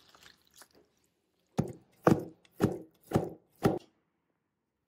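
Kitchen knife chopping on a wooden cutting board: five chops in a row, about two a second.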